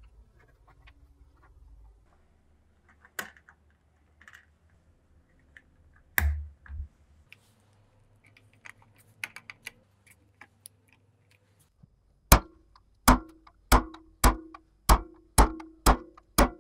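Metal punch or pin being hammered into the steel body of an old spring scale: eight sharp, ringing taps, a little under two a second, beginning about twelve seconds in. Before the taps there are light clicks and a knock or two as the scale's parts are handled and fitted.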